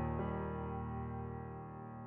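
Soft background piano music: a held chord with one more note added, slowly fading away.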